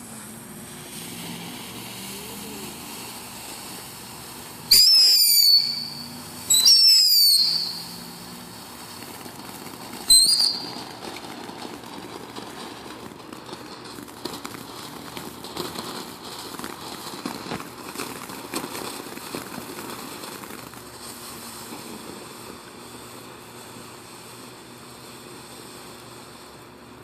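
Consumer firework fountain letting out three shrill whistles about five seconds in, each about a second long with the last one shorter, over a steady hiss from the burning fountain.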